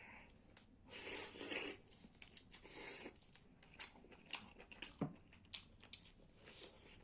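Close-miked eating sounds of a person eating chicken gravy and rice: two short rustling bursts in the first three seconds, then a string of sharp wet clicks and smacks of chewing.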